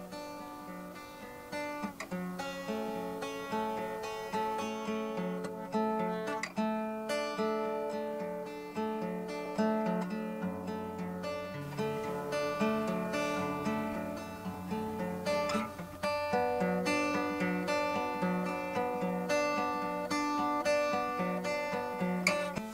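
Acoustic guitar played solo: a picked tune of ringing notes and chords.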